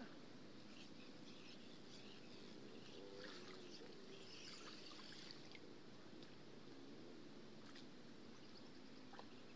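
Near silence: faint background ambience with a few soft, high chirps.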